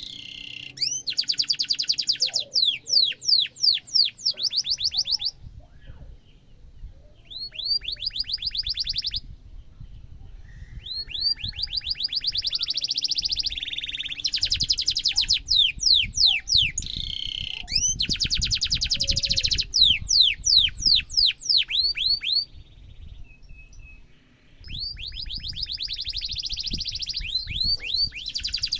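Domestic canary singing long phrases of rapid, evenly repeated high notes and rolling trills. It comes in several bouts broken by short pauses.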